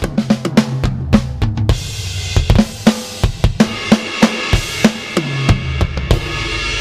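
Drum kit played in a busy groove with fills: tom runs stepping down in pitch near the start and again about five seconds in, kick and snare hits, and a cymbal wash building from about two seconds in. The cymbals are Stealth converted cymbals, fairly dead-sounding.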